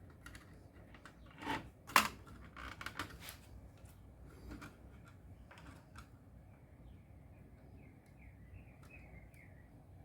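Scattered light clicks and knocks of small hard objects, the loudest a sharp click about two seconds in, typical of handling tools and parts during the repair. Faint bird chirps start in the background after about seven seconds.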